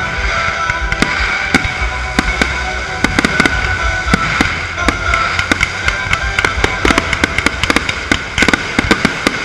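Aerial fireworks going off in quick succession, many sharp bangs and crackling pops that grow denser through the second half, with a loud bang at the very end. Music plays underneath.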